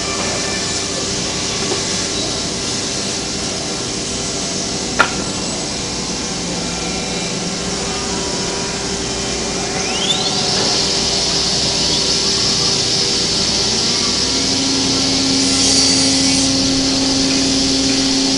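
A 5-axis CNC router's spindle running and cutting wood: a steady whine over a hiss of cutting. There is one sharp click about five seconds in and a rising whine near the middle, and partway through the whine settles onto a lower steady pitch.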